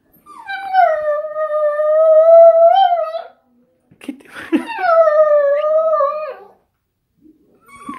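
Small dog howling: two long howls about a second apart, each starting high, settling to a steady pitch and bending at its end.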